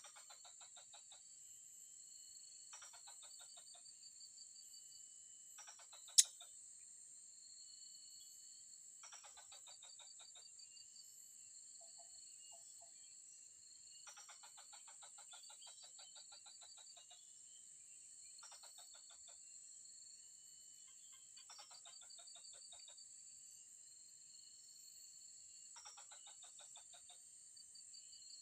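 Faint outdoor ambience: a steady high insect buzz, with repeated rasping pulsed calls lasting a second or two every few seconds. One sharp click sounds about six seconds in.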